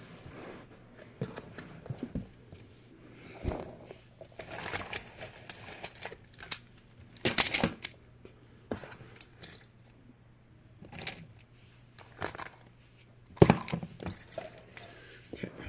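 Small toys being handled and rummaged through: irregular rustling, clicks and knocks, with a louder rustle about seven seconds in and a sharp knock at about thirteen seconds.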